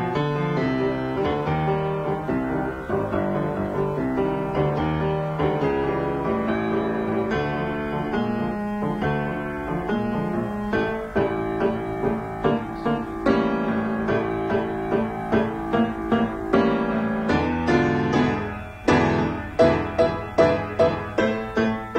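Solo piano music, a steady run of notes that turns to sharp repeated chords, about two a second, in the last few seconds.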